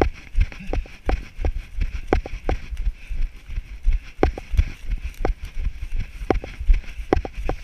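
A runner's footfalls on a grassy dirt trail, a regular thud about three times a second, with a low jolting rumble from a body-worn camera bouncing at each stride.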